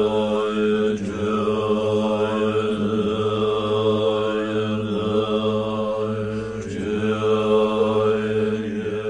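Buddhist mantra chanted on a steady, low held pitch, its vowel sounds sweeping up and down about once a second.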